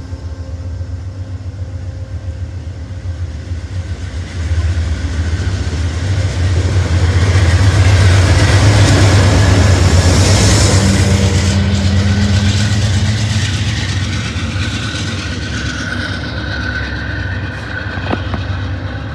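Amtrak passenger train passing alongside the platform: stainless-steel coaches roll by, then a diesel locomotive goes past, its engine drone building to loudest about eight to twelve seconds in and then easing off.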